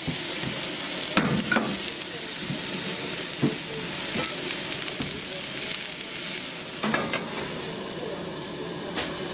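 Ptarmigan meat frying in oil in two pans on a camp stove burner set a little high, with a steady sizzle. A few short clinks of metal cookware break through, about a second in, around the middle and near the end.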